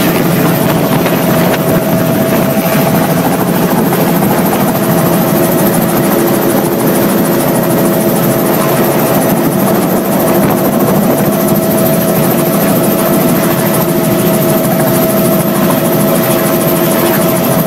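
Helicopter engine and rotor running, heard from inside the cockpit: a loud, steady drone with a constant high whine over it.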